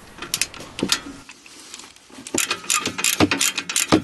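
Socket ratchet clicking as a bolt on the rear brake assembly is tightened: a few scattered clicks, a short pause, then from about two seconds in a steady run of about five clicks a second.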